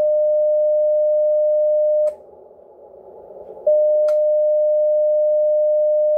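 Icom IC-7300 transceiver's CW sidetone: a steady single-pitched beep that sounds while the carrier is keyed down for tuning the amplifier. It breaks off about two seconds in, when the key is released, and comes back about a second and a half later, with a sharp click just after it returns.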